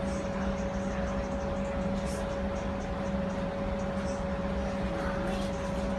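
Interior sound of a Bombardier Flexity streetcar: a steady hum held at one constant pitch over a low rumble and hiss, with a few faint clicks.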